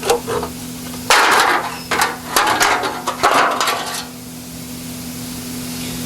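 Hand tools knocking and clattering against the metal of an engine being torn down: a run of sharp knocks and short rattles, then they stop about two-thirds of the way through, leaving a steady low hum.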